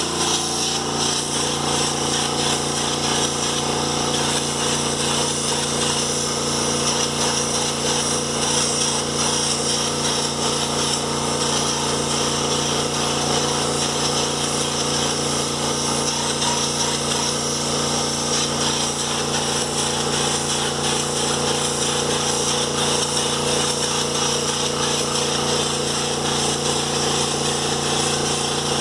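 Air compressor running steadily with the continuous hiss of a compressed-air spray gun spraying silver automotive paint.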